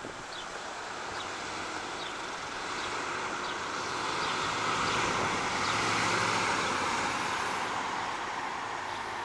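A 1984 Chevrolet El Camino with a V8 driving past at low speed: engine and tyre noise grow as it approaches, are loudest about six seconds in, then ease off.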